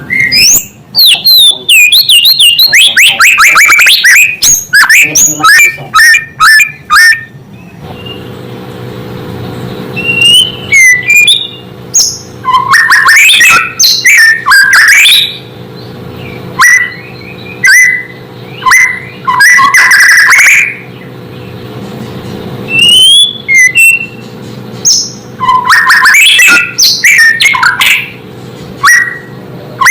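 White-rumped shama (murai batu) singing loudly: a fast run of whistled and chattering notes in the first several seconds, then bursts of varied song separated by short pauses. A faint steady low hum runs underneath.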